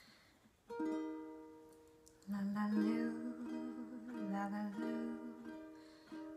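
A ukulele chord strummed once about a second in and left to ring out. From about two seconds in, a woman sings a slow lullaby melody over the ukulele.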